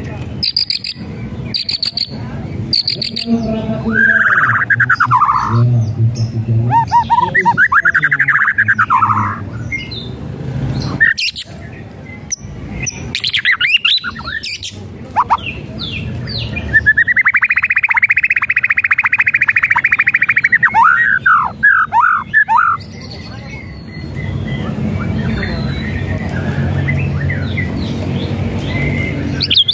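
White-rumped shama singing a varied song: a run of quick clicks in the first few seconds, loud arching whistles, and, a little past the middle, a long buzzy rattle followed by a string of quick falling notes. The rattle is the shama's 'kretekan' call, which keepers take for a sign of a fired-up, agitated bird.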